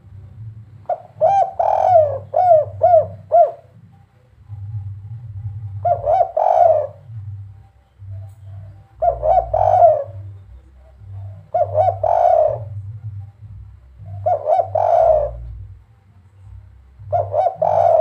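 Caged spotted dove (derkuku), a 'kuk 3' singer, cooing: six short phrases of low coos a few seconds apart. The first phrase is a longer run of about five separate notes.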